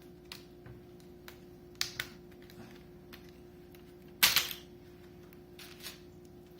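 Plastic laptop screen bezel clips clicking and snapping loose as a plastic spudger pries around the bezel, a few scattered sharp clicks with the loudest snap about four seconds in.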